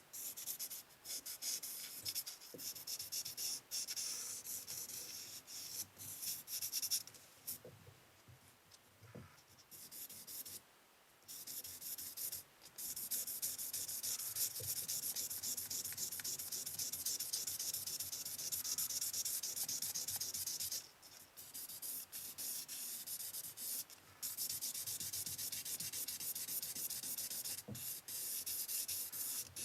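Wet sanding: waterproof sandpaper rubbed back and forth over a fork's surface with water, a steady scratchy hiss of quick strokes with a few brief pauses.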